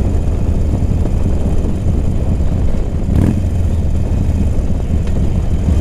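Motorcycle engine running steadily while riding, with a dense low rumble of engine and road noise. A short thump cuts through it about three seconds in.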